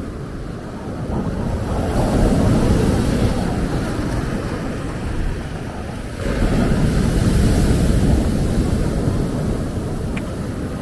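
Ocean waves breaking on a beach: two surges, the first building gradually about a second in, the second coming in suddenly about six seconds in, each fading away after, with wind rumbling on the microphone.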